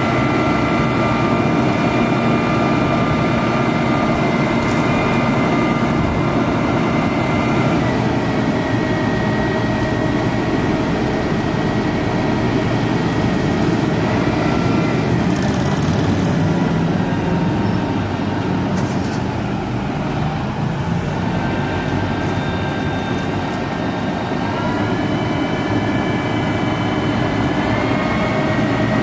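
Scania turntable ladder truck's diesel engine running at raised revs to work the ladder hydraulics as the ladder is raised and extended. A steady whine rides over the engine and shifts in pitch several times as the ladder moves.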